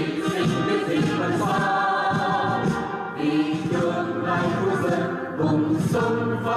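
A group of voices singing a national anthem together.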